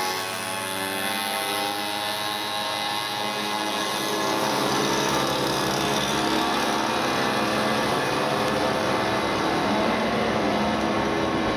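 A crowd of 50cc two-stroke mopeds and small motorcycles running together, several buzzing engine notes overlapping and rising and falling as they rev and pull away.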